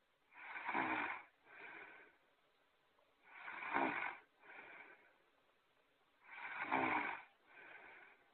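Snoring sound effect repeating in a steady cycle: three loud, rasping snores on the in-breath, each followed by a shorter, quieter out-breath, about every three seconds.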